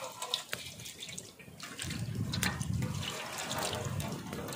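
Cooking oil poured in a thin stream from a plastic sachet into a large metal pot, a steady trickling splash. A low rumble sets in about two seconds in.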